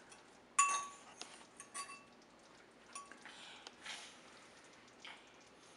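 Metal fork clinking against a ceramic bowl while scooping rice and a meatball, a handful of sharp ringing clinks with the loudest about half a second in.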